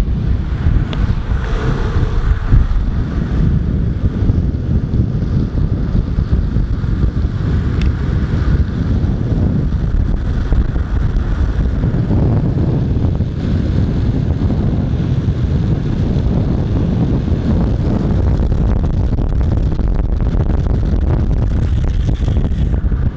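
Loud, steady wind noise buffeting the microphone at downhill speed, over the rolling of longboard wheels on asphalt.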